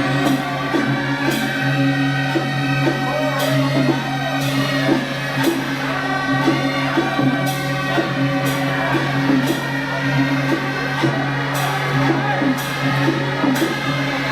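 Music with singing over a steady low drone, with a regular beat of about one stroke a second.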